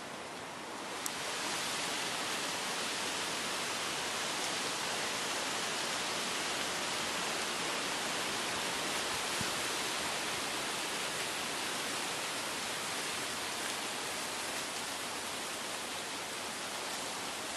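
Steady rushing hiss of gale-force storm wind through trees, stepping up in level with a click about a second in and then holding steady.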